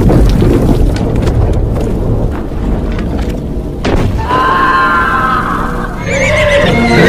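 A loud, deep rumble over heavy rain, with a sharp thud about four seconds in. After it, women wail and sob in grief, louder near the end.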